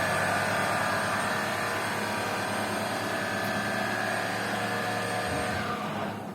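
CNC foam cutting machine running with a steady motor whine made of several held tones. It winds down about five and a half seconds in and stops, marking the end of the cut.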